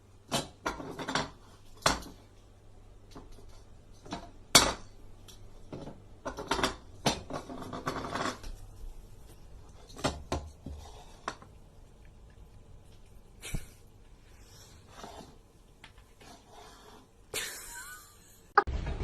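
Irregular clattering and clinking of hard objects: scattered knocks and sharp clicks, the loudest about halfway through.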